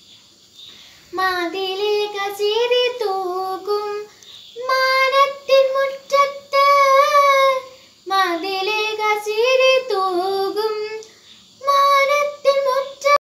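A girl singing solo without accompaniment, in phrases of a few seconds with short pauses for breath between them. The sound cuts off abruptly at the end.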